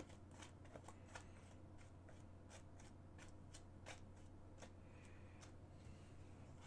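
Near silence: a low steady hum with faint, irregular light clicks and taps.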